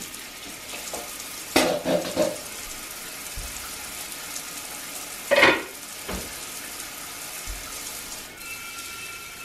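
Kitchen faucet running steadily into a sink, with short clatters of dishes being handled about one and a half seconds in and again about five seconds in.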